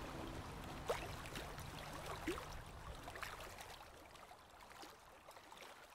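Faint trickling, gurgling water with a few small drips and bloops, fading out steadily; the last low note of a music track dies away in the first seconds.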